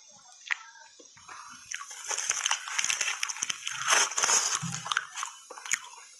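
Ice crunching between the teeth in a few sharp cracks, then a clear plastic bag crinkling and crackling loudly as it is pulled and handled, easing off near the end.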